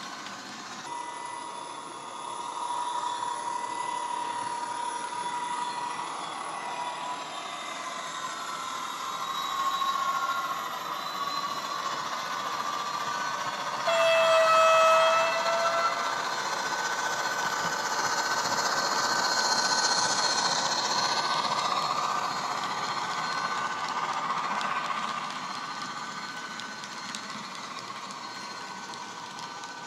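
Bachmann Class 57 model locomotive's factory DCC sound decoder playing diesel engine sound through an upgraded pair of small speakers, the engine note rising and falling as it hauls its train. About fourteen seconds in a horn sounds for about a second and a half, the loudest moment; the uploader finds the sound file American-sounding and the horn wrong for a Class 57.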